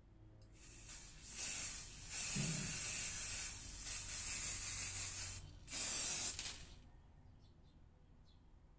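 Aerosol spray-paint can spraying with a steady hiss: one long spray of about five seconds with brief dips, then a shorter, louder burst, stopping about seven seconds in.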